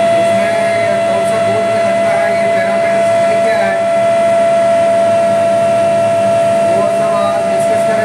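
Induction melting furnace power panel in operation: a loud, steady high-pitched whine held on one pitch with fainter overtones, the tone of the furnace's inverter and coil running.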